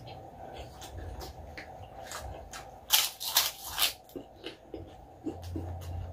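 Close-up chewing of crispy fried pork intestine (chicharon bituka): a run of small crunches, with a louder burst of crackling crunches about three seconds in.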